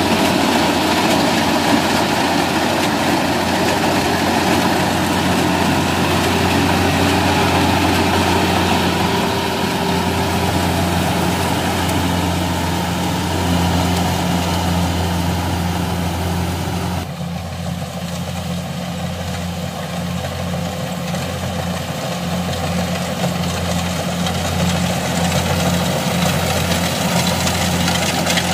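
Kubota DC-70 crawler combine harvester running steadily as it cuts rice: a constant low diesel engine hum under a dense wash of machine noise from the header and threshing works. About two-thirds of the way through the higher noise drops away abruptly, leaving mostly the engine hum.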